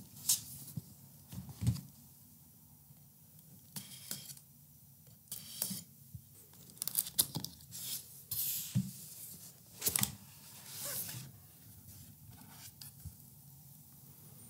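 Packaging of a keyboard box being torn open and handled: a series of short tearing and rustling sounds of plastic and cardboard, with quiet gaps between them.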